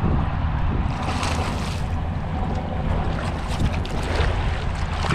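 Wind buffeting the microphone in a constant low rumble, over lapping and splashing water that swells up about a second in and again near four seconds.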